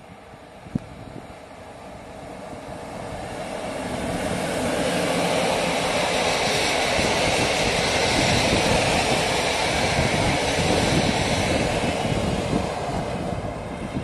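Electric-hauled PKP Intercity passenger train passing at speed: the rumble and hiss of wheels on rails builds over the first few seconds, stays loud as the coaches go by, then eases slightly near the end. A single sharp click sounds about a second in.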